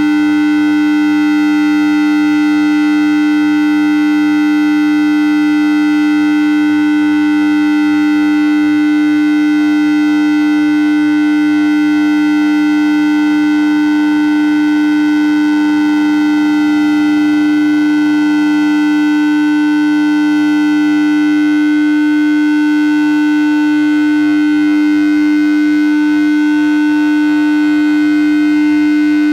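Steady electronic tone: a loud low hum with a higher whine above it and many fainter overtones, holding without change.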